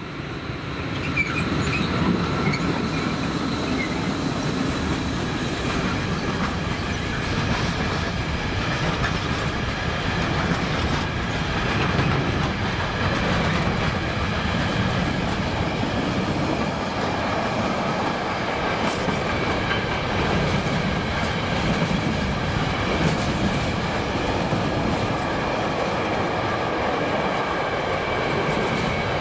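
A train running past close by: a steady rumble of wheels on the rails with clickety-clack and a few thin steady high tones above it. It swells up about a second in and then keeps going.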